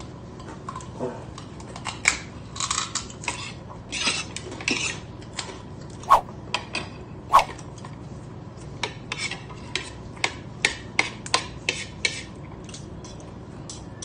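Spoons clinking and scraping against plates and bowls during a meal: a busy run of short clicks and scrapes, with two louder ringing clinks about halfway through.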